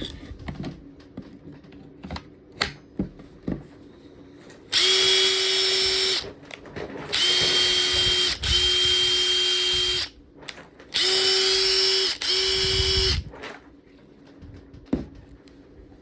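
Makita TD136D 14.4 V cordless impact driver running with no load in five short trigger pulls of a second or so each, a steady motor whine that starts and stops sharply with no hammering, with a few light handling clicks before the first run. It is being run to show that the tool works.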